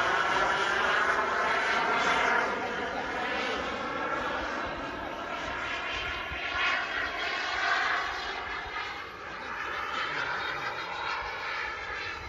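Kingtech K210 microturbine of a Skymaster MiG-29 RC jet in flight: steady jet whoosh and whine that rises and falls as the model passes. It is loudest at first, drops about two seconds in, and swells again for a moment around seven to eight seconds.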